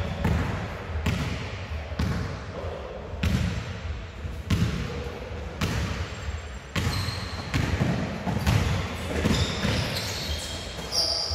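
Basketballs bouncing on a sports-hall floor, about one bounce a second, each thud echoing in the large hall.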